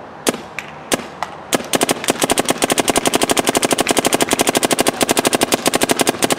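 Dye M3+ electronic paintball marker firing on stock semi-auto settings: a few single shots, then from about a second and a half in a fast, even string of shots at roughly ten a second.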